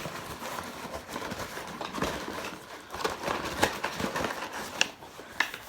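Cardboard box and packaging being handled: irregular rustling with scattered light taps and clicks.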